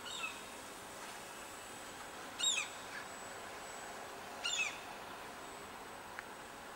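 Common gulls calling: a faint call at the start, then two short, falling calls about two seconds apart, over a steady faint hiss.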